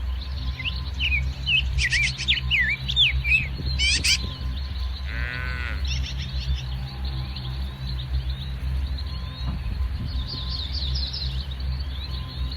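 Small birds chirping in short, quickly rising and falling calls, in a flurry over the first few seconds and again near the end, with one longer buzzy call in between, over a steady low hum.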